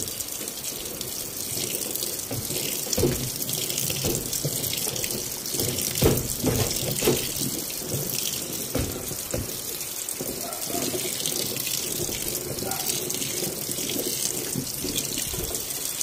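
Water pouring from a top-load washing machine's inlet into the tub and splashing onto the laundry as the tub fills: a steady rushing hiss with a few louder splashes.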